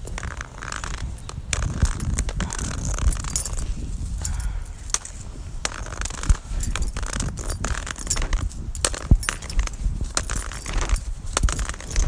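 Rustling and handling noise on a phone microphone carried while walking, with many small irregular clicks and knocks over a low rumble.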